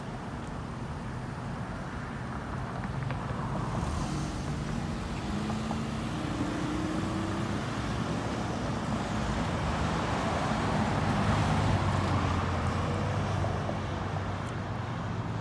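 Road traffic: cars driving past on a multi-lane street, with engine and tyre noise that swells about ten seconds in as vehicles pass close.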